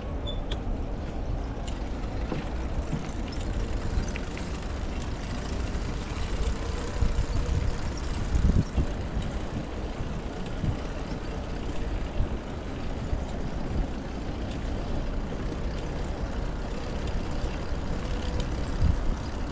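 Steady rumble of city road traffic, with a few louder low surges around the middle and near the end.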